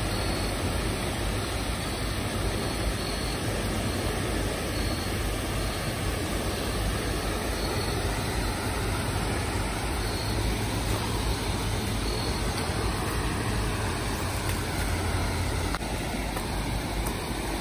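Water pouring over a concrete dam spillway and churning in the river below it: a steady, even rush.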